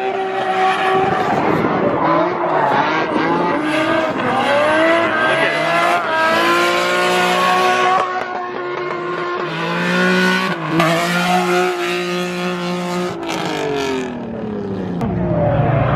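Car engines revving hard with tyres squealing and skidding as cars drift, the engine pitch rising and falling and at times held steady at high revs.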